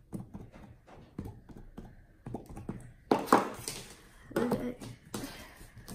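Hands working sticky slime, making many small clicks and pops, with glitter tapped out of small jars; a few louder squishes come a little past the middle.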